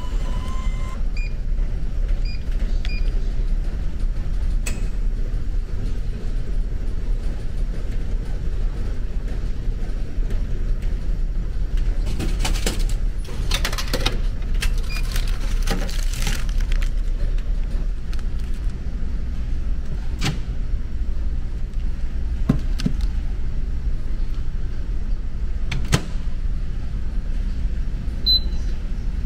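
Steady low rumble of the ferry's engine, which keeps the ship vibrating. Over it, a vending machine gives a few short beeps near the start, there are several seconds of rustling and knocking midway as food is taken from the machine's dispenser opening, a few sharp clicks follow, and a commercial microwave beeps once near the end as a button is pressed.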